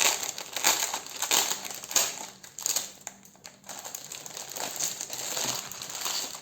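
Plastic wrapping on a CD album package crinkling and rustling as it is handled and unwrapped, in a quick, irregular series of crackles.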